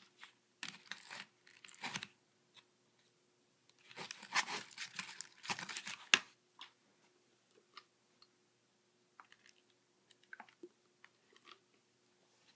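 Homemade glue-and-borax slime being worked and squished, still sticky, giving wet crackling squelches in two spells, then only faint scattered clicks for the second half.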